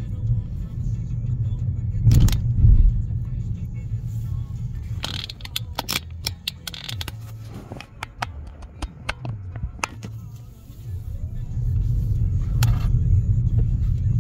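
Car driving slowly, heard from inside the cabin: a low rumble of engine and road noise that drops away in the middle as the car slows, with a run of sharp clicks and knocks, then builds again near the end as it pulls away.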